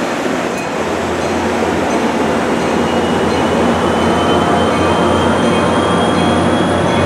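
NJ Transit commuter coaches rolling past close by: a loud, steady rumble and clatter of wheels on rail, growing slightly louder. A faint thin whine rises slowly in pitch through it.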